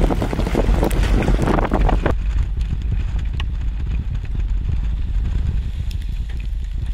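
Wind buffeting the microphone during a hailstorm. For the first two seconds a dense, rapid patter of rain and hail strikes runs over the wind. After that only a steady low wind rumble remains, with a few faint hits.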